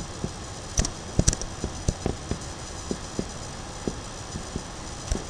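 Computer mouse clicking irregularly, a dozen or so short sharp clicks, over steady room noise.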